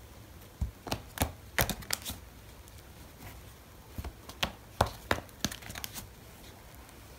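A tarot deck being shuffled by hand: cards knocking and slapping together in quick, sharp clicks. The clicks come in two bursts, one starting about half a second in and one from about four to six seconds in.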